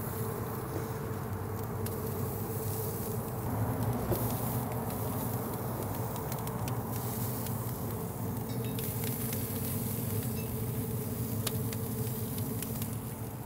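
Chicken wings sizzling as they are laid on the hot grates of a Yoder YS640 pellet grill, with faint crackling ticks over a steady low hum from the running grill.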